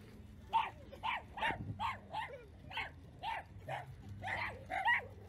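Small dog barking over and over, about a dozen short, high barks at roughly two a second.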